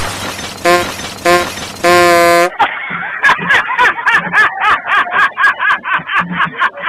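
Train-style air horn sounding two short blasts and then a longer one, followed from about two and a half seconds in by upbeat music with a quick, steady beat.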